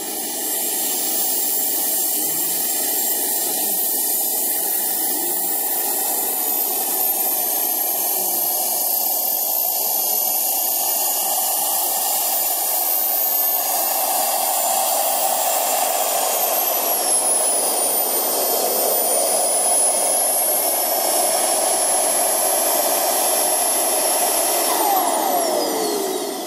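The twin model turbine jet engines of a large RC Airbus A330 run at taxi power with a loud, high whistling whine whose pitch dips and recovers about two-thirds of the way through. Near the end the whine falls in pitch and fades as the turbines spool down.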